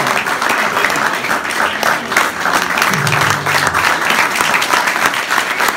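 Audience applauding steadily, a dense patter of clapping from a small crowd.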